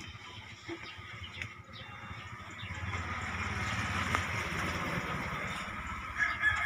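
Outdoor background noise: a low rumble with a broad hiss that swells about halfway through and holds, and a short high call near the end.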